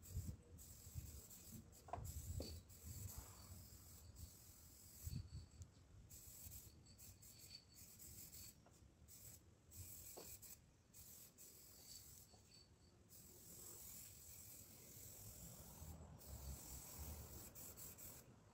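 Aerosol spray-paint can hissing faintly in a string of short and longer sprays, with brief breaks between strokes. A few low thumps stand out in the first five seconds.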